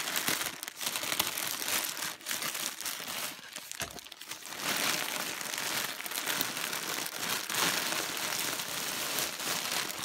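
Thin plastic crinkling and rustling as a grey poly mailer bag is cut and pulled open by hand, and the clear plastic bag wrapping the plush toys inside is handled; the rustling eases briefly a few seconds in.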